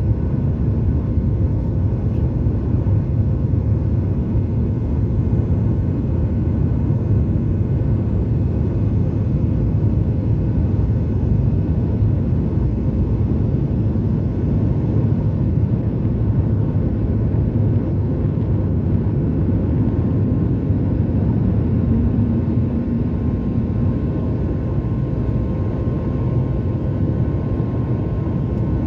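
Steady cabin noise of a Boeing 737 MAX 8 climbing out, heard from a seat over the wing: rushing air and the drone of its CFM LEAP-1B turbofan over a deep rumble. A faint steady whine rides on top and grows slightly louder near the end.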